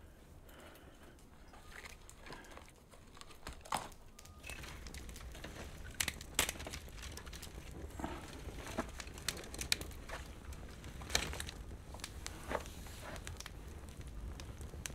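Dry twigs and straw crackling and rustling as hands handle and break them, with irregular sharp snaps. A low steady hum comes in about four seconds in.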